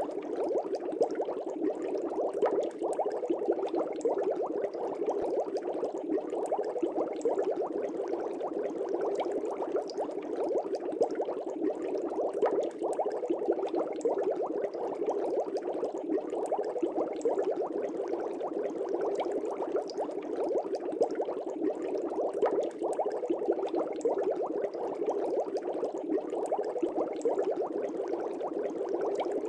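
Air bubbles rising and breaking in a fish tank: a steady, dense bubbling made of many small pops, unchanging throughout.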